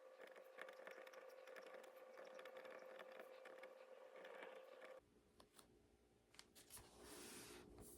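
Near silence: faint room tone with a steady hum and scattered small clicks, changing abruptly to a different faint background about five seconds in.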